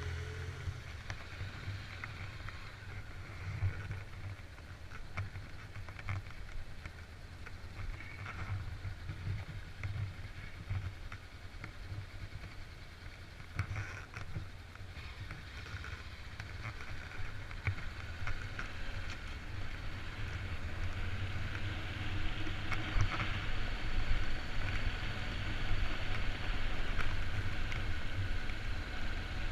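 Vehicle driving along a dirt road: engine rumble and tyre and road noise, growing louder about two-thirds of the way through.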